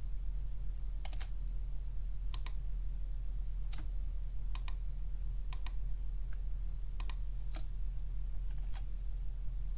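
Scattered clicks of a computer keyboard and mouse, many in quick pairs, about one a second, over a steady low electrical hum and a faint high whine.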